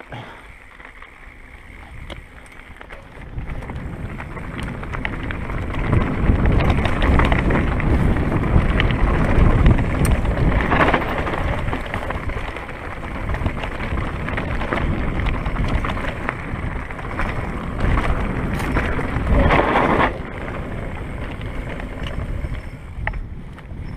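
Wind buffeting the camera microphone over the rattle of a mountain bike on rough, rooty trail. It builds a few seconds in, is loudest through the middle, and eases off near the end.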